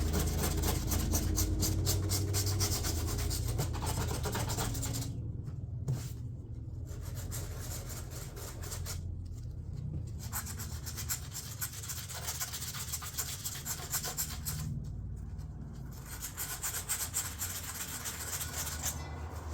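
Hand sanding strokes rasping back and forth over not-yet-fully-cured filler on a fiberglass door panel, taking down high spots. The rubbing is steady at first, then stops briefly three times.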